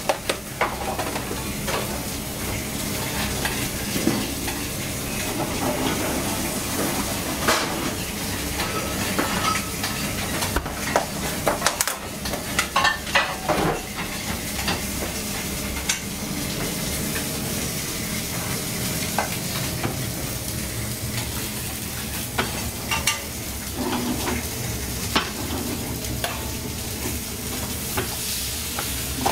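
Restaurant kitchen during service: a steady sizzle of food frying on the range under a constant hiss, with repeated clinks and clatter of dishes, pans and utensils, most frequent about halfway through.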